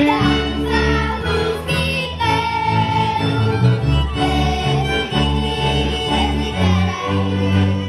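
Live folk band of fiddles, accordion and double bass playing a dance tune over a steady pulsing bass.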